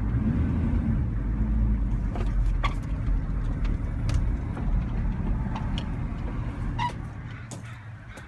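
Vehicle driving, a steady low engine and road rumble that dies down near the end as it slows.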